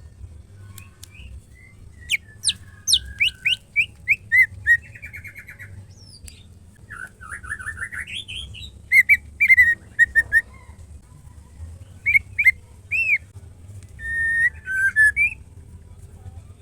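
White-rumped shama (murai batu) calling in short separated phrases: quick series of sharp down-sweeping notes, a rising rattled run, and loud clear whistled notes near the middle and again toward the end.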